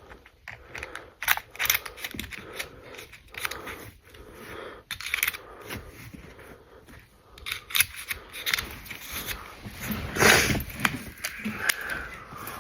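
Pennies clicking and clinking as they are handled and counted, in many small irregular clicks. A louder, longer burst of noise comes about ten seconds in.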